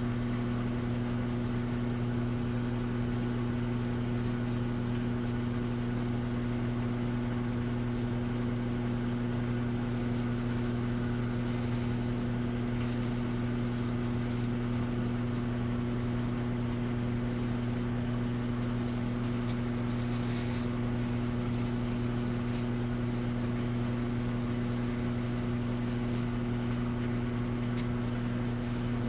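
Electrolux Essential Care 11 kg top-load washing machine running with a steady, unchanging motor hum.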